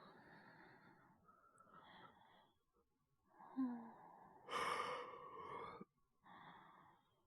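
A man's acted breathing: several heavy breaths in and out, with a louder voiced groan or sigh about halfway through, as of someone sleeping uneasily in pain from a stomach ache.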